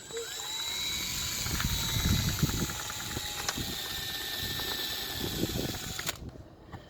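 Power drill spinning up with a rising whine and boring a pilot hole, running steadily for about six seconds before stopping suddenly.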